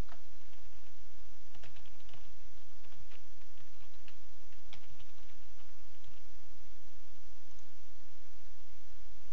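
Computer keyboard typing: a run of keystrokes in the first half, thinning out to a few near the end, over a steady low hum.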